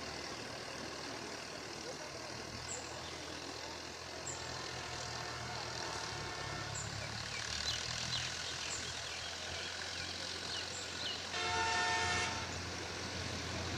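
Tractor engine running steadily with a low hum. About 11 seconds in, a horn sounds once for about a second.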